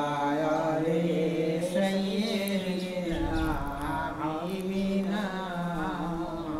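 A man's voice softly singing or humming a slow devotional melody, holding long notes and gliding between them, quieter than the sung lines around it.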